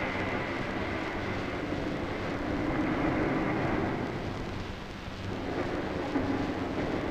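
A dense, rumbling noise drone with a low steady hum, swelling about two and a half seconds in and again near the end.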